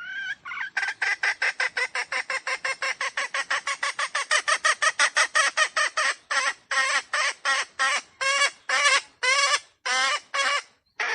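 Red junglefowl (wild chicken) calling in a long series of short, harsh pitched notes, about seven a second, that slow to two or three a second over the last few seconds.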